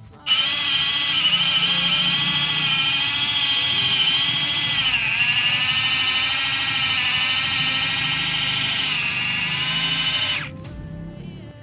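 Small push-button electric mini chopper running with a high motor whine, blending banana slices. Its pitch dips briefly about halfway through, and it stops suddenly near the end.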